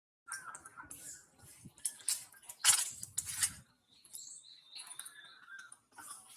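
Monkeys squeaking with short high calls among rustling and scattered clicks. A louder rustling clatter comes about halfway through, and the thin squeaks follow just after.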